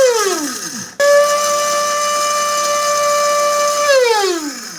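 Electric kitchen dry grinder's brushed motor, loaded with a small amount of cumin seeds, run in short bursts. The motor whine is falling away at the start. About a second in it is switched on again and whines at a steady high pitch for about three seconds, then falls in pitch as it coasts down once switched off. It runs freely now that its water-corroded moving parts have been cleaned and oiled with WD-40.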